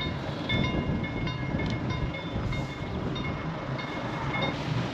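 Road bridge warning signal ringing in short repeated high tones, about two to three a second, the signal for cars to stop before the bridge opens. It stops shortly before the end, with a low steady hum underneath.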